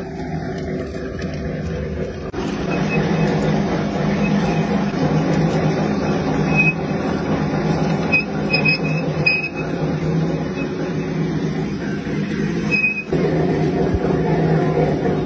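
Motor-driven sugarcane crusher running steadily with a low hum, its rollers crushing cane stalks as they are fed in, with a few faint high squeaks.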